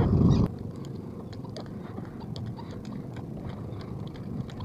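Small outrigger fishing boat's engine running, then cutting off abruptly about half a second in. After that only faint scattered clicks and knocks remain.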